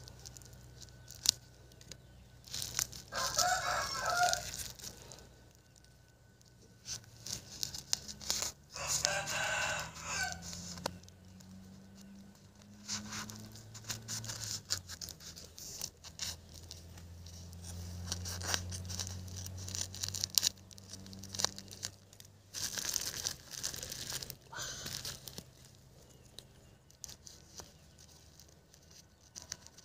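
Scissors snipping through plastic sheeting wrapped around a tree's root ball, the plastic crinkling and tearing as it is cut. A rooster crows three times, about 3, 9 and 23 seconds in; these crows are the loudest sounds.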